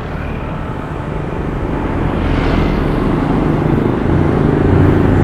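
Road traffic: a passing motor vehicle's engine and tyre noise, growing steadily louder as it comes closer.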